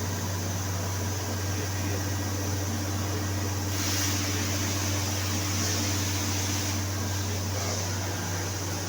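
Refrigeration compressor and cooling fans of an Ingersoll Rand refrigerated air dryer running with a steady low hum and hiss. A louder hiss joins for about three seconds in the middle.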